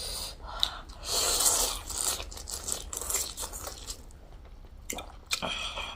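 Close-miked eating: a person chewing and tearing at food, with a louder noisy stretch about a second in and a few sharp clicks near the end.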